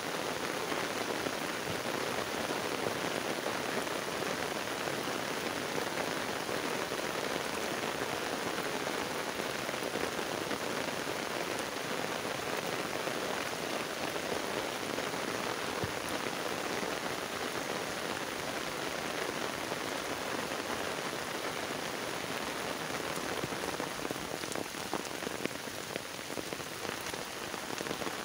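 Heavy rain pouring steadily onto a flooded road and standing water, a dense, even hiss of splashing drops.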